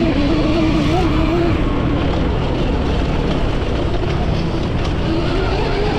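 Electric dirt bike with a QS138 brushless motor and built-in gear reduction, ridden off-road: a whine that wavers up and down in pitch over a steady rumble and hiss.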